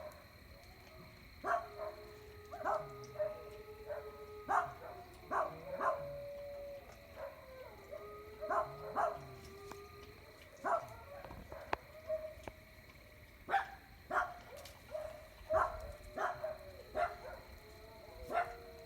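Dogs barking repeatedly in irregular runs of sharp barks, with long drawn-out howls held for several seconds in between. A steady high-pitched hum runs underneath.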